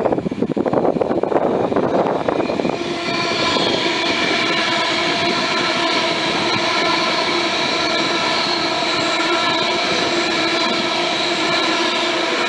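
Class 390 Pendolino electric train passing through the station at speed, right alongside the platform. A fluctuating rushing noise comes first; from about three seconds in, a steady high-pitched whine carries over the rush of the passing carriages.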